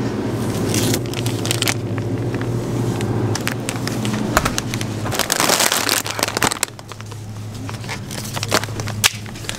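Steady low hum of shop background noise, with scattered clicks and crackling and a burst of rushing noise about five seconds in.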